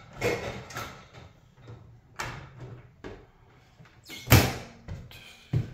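A few light knocks of handling, then a door banging shut loudly about four seconds in, followed by a smaller knock.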